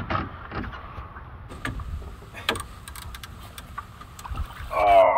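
Knocks and clatter of a landing net and a big blue catfish being hauled up over the side of an aluminum boat, over a low steady rumble of wind and water. A man's voice comes in near the end.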